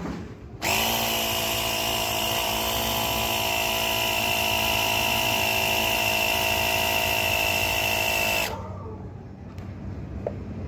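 Mini 12-volt electric air compressor (tyre inflator) pumping up a bicycle tyre: its motor and piston start suddenly with a steady buzzing hum, run evenly for about eight seconds, then cut off abruptly.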